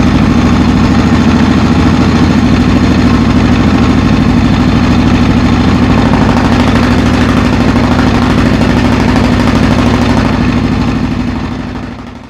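Honda XR600R's air-cooled single-cylinder four-stroke engine running at a steady idle, fading out over the last couple of seconds.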